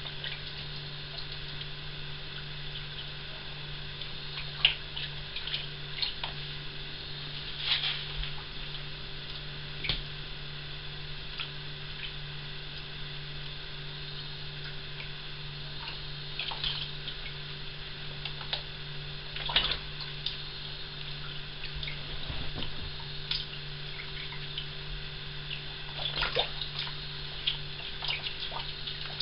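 A fabric dog cooling coat being squeezed and worked by hand in a plastic bowl of water, with irregular splashes and drips, over a steady low hum.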